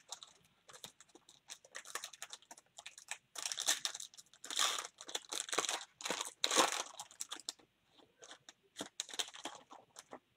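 Foil wrapper of a baseball card pack crinkling and tearing as it is ripped open by hand, loudest in the middle, with scattered crackles near the end as the wrapper is handled.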